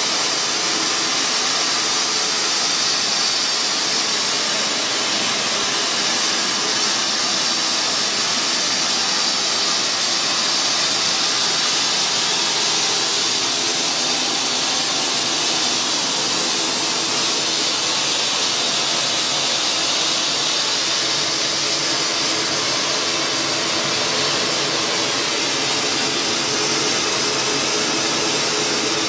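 Roller flour mill machinery running, a steady rushing whir that is brightest in the high range, with a faint hum beneath.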